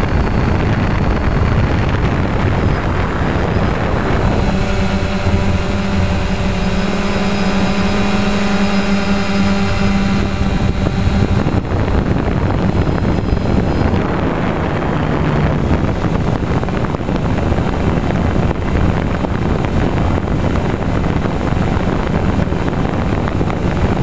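A drone's motors and propellers buzzing, heard from its own onboard camera, mixed with wind rushing over the microphone. From about four seconds in until about eleven a steady hum stands out clearly, then the sound turns rougher and noisier again.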